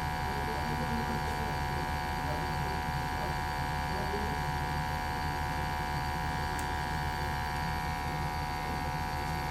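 Steady electric buzz with a high fixed tone from a combustion analyzer's sampling pump drawing flue gas from a running gas-fired boiler, over a low steady hum.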